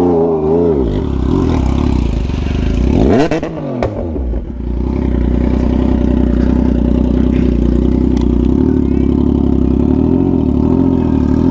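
Motorcycle engine revving, with a sharp rise and fall of revs about three seconds in, then running at a steady speed.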